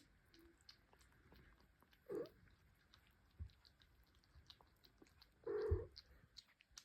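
Faint, wet clicking and smacking from a mother cat and her kittens, like licking or chewing. Two short, louder sounds come about two seconds in and again near the end, with a couple of low thumps.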